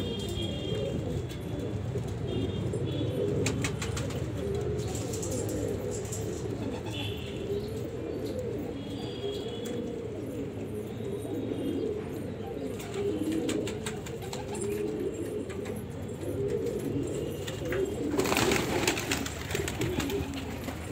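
Domestic pigeons cooing in a continuous overlapping murmur, with a few short higher chirps. A brief rustling burst comes near the end.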